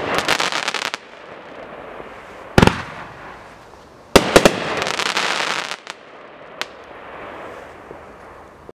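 A 500-gram consumer firework cake firing shells that break with a crackling lace finish. There is rapid crackling in the first second, a sharp bang between two and three seconds in, then three bangs in quick succession about four seconds in, followed by more than a second of crackling. A small pop comes near the end, and the sound cuts off sharply just before the end.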